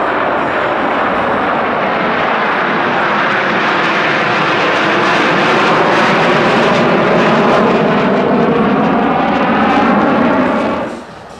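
Jet noise from a formation of Northrop F-5E Tiger II fighters flying past, a loud steady roar from their twin J85 turbojets. The roar swells slightly through the middle with a slowly sweeping, phasing tone, then cuts off abruptly near the end.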